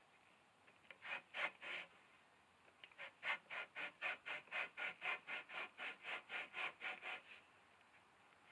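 A dried beaver hide is rubbed rapidly back and forth over the edge of an upright wooden 2x2, making a rasping scrape of about five strokes a second. A few strokes come about a second in, then a long steady run. The staking breaks up the hide's fibres so the skin whitens and softens.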